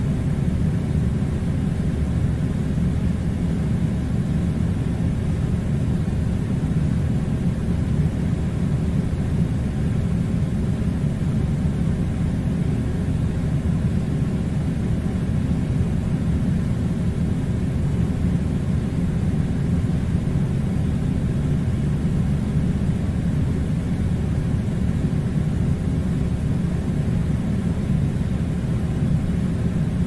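Steady low rumbling noise with no distinct events and no change in level.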